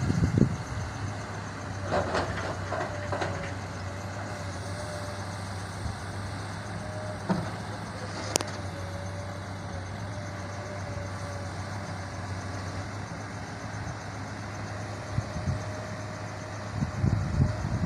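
Large diesel truck engine running steadily with a low hum, with a few brief knocks and a sharp click about eight seconds in.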